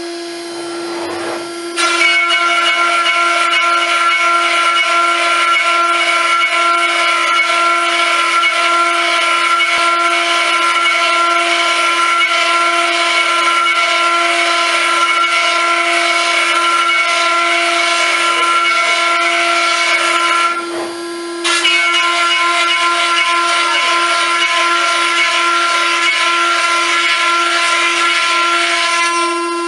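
CNC router spindle running with a steady high whine while its bit mills MDF, the rough cutting noise coming in about two seconds in. The cutting noise drops away for about a second near two-thirds of the way through, then resumes at the same level.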